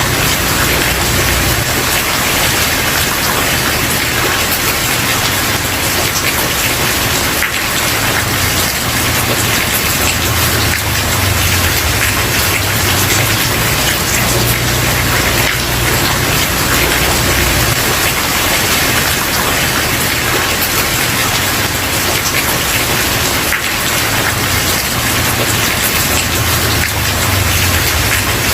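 Steady heavy rain falling, a dense even hiss of drops with a low rumble that rises and falls underneath.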